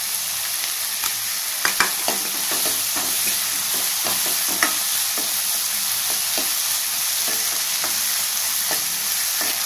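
Chopped tomato and onion frying in oil with salt in a pan, a steady sizzle as the tomato softens, while a stirring utensil scrapes and taps against the pan in repeated short clicks, the sharpest a couple of seconds in and near the middle.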